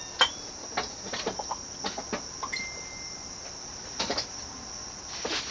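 SMC Laguna KA36 industrial ceiling fan turning slowly, just brought up from standstill on its variable-speed knob: a steady high-pitched whine with scattered light clicks and ticks.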